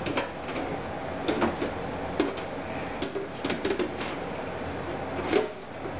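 Desktop computer case's side panel being handled and fitted back on: scattered light clicks, knocks and scrapes of sheet metal and plastic, with a few brief squeaks.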